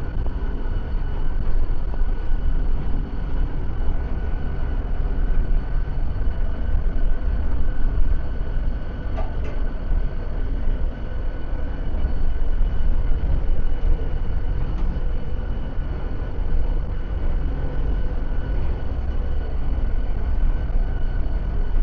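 Glass panoramic lift climbing the tower: a steady low rumble with a constant high whine running through it, and a faint click twice along the way.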